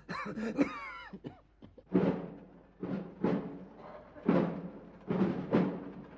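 A deep drum beating a slow procession march: single and paired strokes about a second apart, each ringing briefly.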